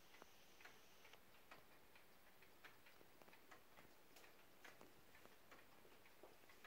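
Junghans Electronic ATO-MAT battery wall clock ticking faintly, a series of small, light clicks.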